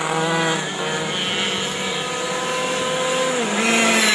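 Racing kart engines running at high revs as karts go by on the track. The pitch holds steady with a step up about three and a half seconds in, and the sound grows louder toward the end as a kart approaches.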